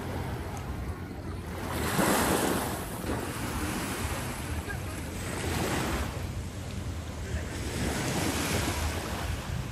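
Sea waves washing in about every three seconds, the first one the loudest, with wind rumbling on the microphone.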